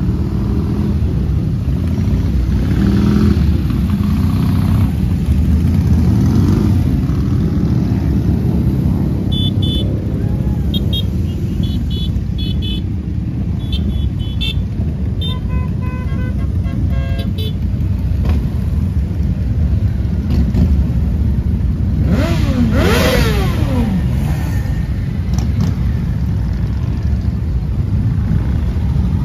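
Motorcycles running in a group ride, a steady low engine rumble, with a string of short horn toots in the middle. About three quarters of the way through, one engine revs up and back down.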